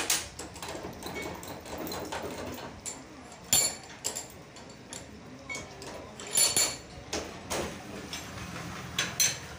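Hand tools and metal parts clinking and clanking on a steel workbench, with the bench vise's sliding handle bar knocking. Sharp metallic clinks with a short ring come every few seconds, some in quick pairs.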